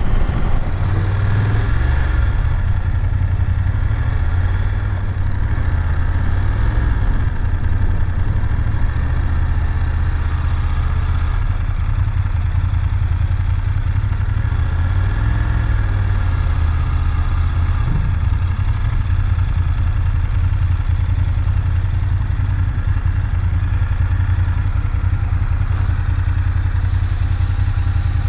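BMW F750GS motorcycle's parallel-twin engine running as the bike is ridden, its note shifting with speed early on, then running at low revs and idling near the end as the bike stops.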